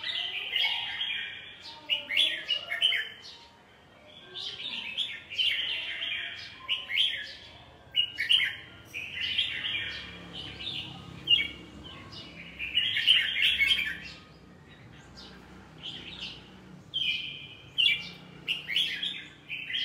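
Caged red-whiskered bulbul singing: short, bright warbling phrases of about a second each, repeated every second or two with brief pauses. Keepers take such singing as the sign of a bird in breeding form ('lửa').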